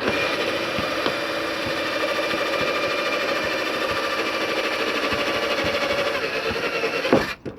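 Power drill boring the last parking-sensor hole through the rear bumper, its motor running at a steady pitch with a fine rapid chatter of the cutter in the plastic, then stopping suddenly near the end.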